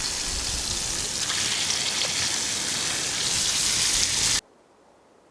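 Food sizzling in a hot pan: a steady hiss with faint pops that cuts off suddenly about four seconds in.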